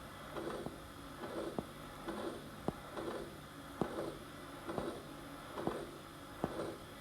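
Auscultation recording of an aortic stenosis heart: about one beat a second, each beat a sharp heart sound followed by a crescendo-decrescendo systolic ejection murmur. Aortic stenosis is typically from age-related calcification or a calcified bicuspid aortic valve.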